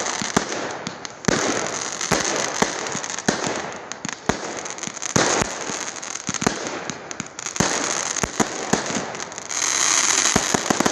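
A multi-shot box of fireworks going off: irregular sharp bangs over continuous crackling, with a louder burst of crackle near the end.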